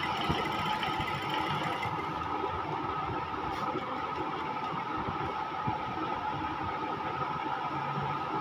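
Sewing machine running steadily, stitching a cuff onto a sleeve.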